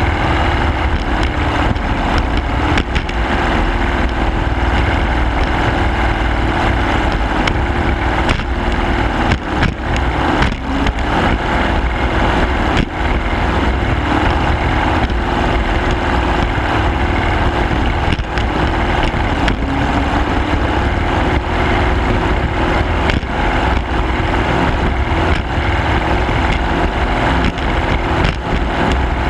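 Motor of a small racing garvey boat running steadily at high speed, with water rushing past the hull and scattered brief knocks as it slaps over the chop.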